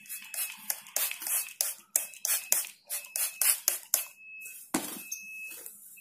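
Hand-held trigger spray bottle squirting fine mist over a small bird held in the hand, a quick series of short hissy squirts, about three a second, with a pause and a couple more near the end.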